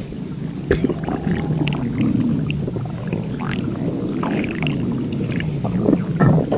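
A person's stomach growling and gurgling without a break, in low wavering rumbles with short squeaky gurgles sliding up in pitch now and then.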